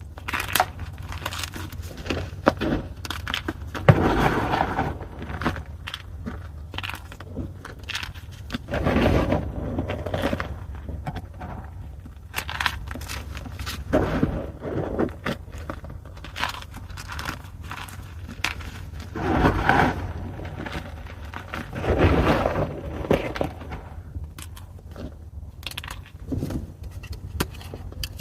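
Blocks of gym chalk (magnesium carbonate) being crushed, with dry crunching and crackling in irregular bursts every few seconds and scattered small clicks between them, over a low steady hum.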